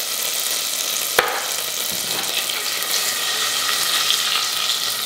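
Butter melting and sizzling in a stainless steel saucepan, a steady hiss, with one sharp click about a second in.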